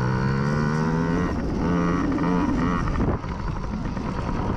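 Small dirt-bike engines revving, the pitch climbing and then rising and falling as throttle is opened and eased off, with a brief dip in loudness about three seconds in.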